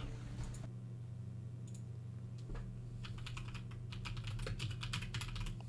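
Typing on a computer keyboard: a few single key presses, then a quick run of keystrokes lasting about two and a half seconds, starting about three seconds in.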